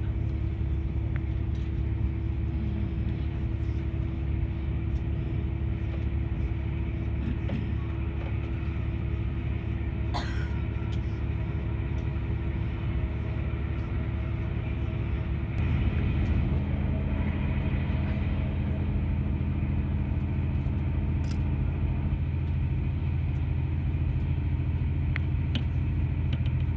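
Cabin noise of a moving train: a steady low rumble of the wheels and running gear with a droning hum. About halfway through, the hum changes to a lower note and the noise grows a little louder.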